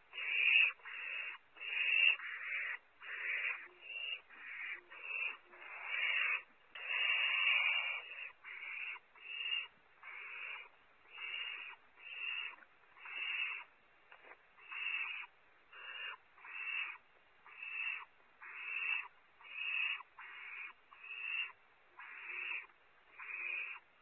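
Barn owl owlets giving harsh, hissing calls over and over, a little more than one a second, with one longer call about six seconds in. This is the rasping, snore-like hiss that barn owl chicks use to beg for food.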